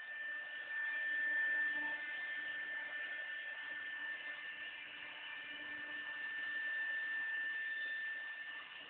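4-axis CNC router's spindle running with a steady high-pitched whine, swelling in loudness twice.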